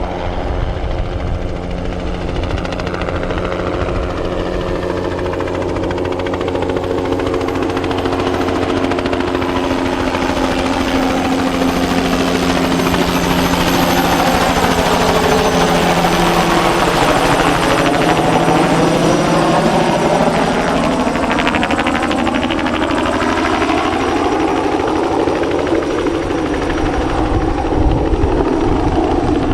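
Bell 206B-3 JetRanger III helicopter flying a low pass, its turbine and rotor sound growing louder and sweeping as it passes close by about halfway through, then staying loud.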